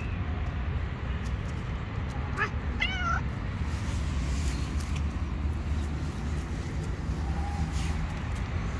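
A hungry stray cat meowing for food: two short meows close together about two and a half to three seconds in, and a fainter one near the end, over a steady low background rumble.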